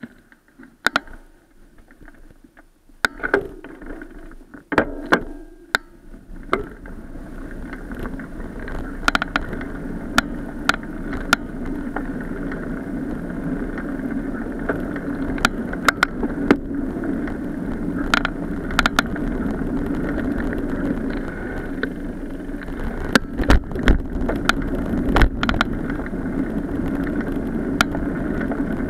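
Bicycle riding noise picked up by a camera mounted on the bike: a few clicks and knocks at first, then from about six seconds in a steady rumble of tyres on the path and wind, with frequent sharp knocks and rattles from bumps.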